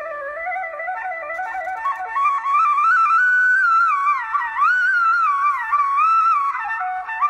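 Instrumental background music: a flute-like melody that slides and bends in pitch over a faint steady drone.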